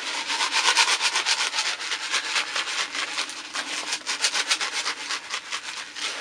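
Granular Growmore fertiliser shaken out of its cardboard box, the granules pouring and pattering onto compost in a continuous gritty rush with quick pulses several times a second from the shaking.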